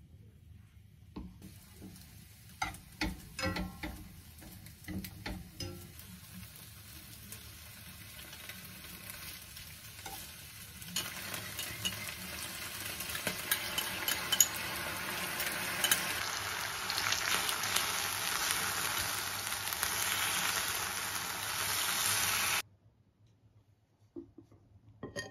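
Sliced pork and onions sizzling in a frying pan over a gas flame, with the clatter of stirring in the first few seconds. The sizzle grows louder and then cuts off abruptly about 22 seconds in.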